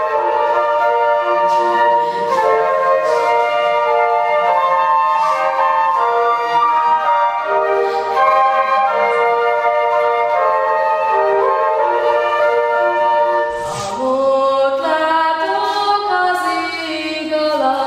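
A small ensemble of young flute players plays a slow melody in held notes. About fourteen seconds in, this gives way to a young woman singing unaccompanied.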